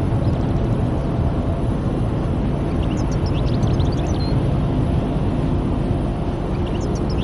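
Steady road and engine noise heard from inside a moving car: a dense low rumble of tyres and engine. A few brief high chirps come about three seconds in and again near the end.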